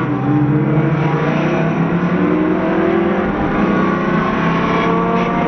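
Twin-turbocharged Camaro SS V8 running hard under acceleration, heard from inside the cabin, its pitch climbing slowly.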